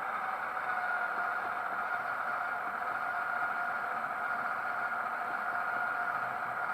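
Sound decoder of a Roco HO-scale Ludmilla (DB class 232) model locomotive playing its diesel engine sound through the model's small speaker: a steady drone with two held tones as the model runs on the track.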